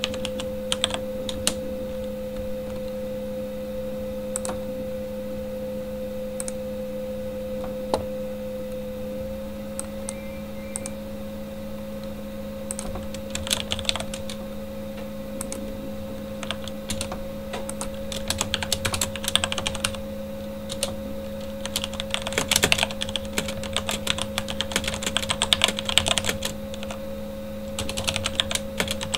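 Typing on a Corsair K70 mechanical keyboard with Cherry MX Red linear switches: scattered keystrokes at first, then runs of fast typing from about halfway through. A computer fan hums steadily underneath.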